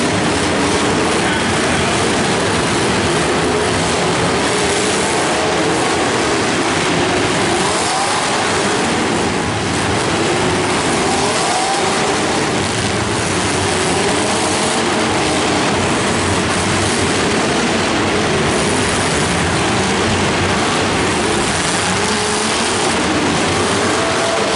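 Many demolition derby cars' engines revving at once, a loud steady din of overlapping engine notes rising and falling as the cars push and ram each other.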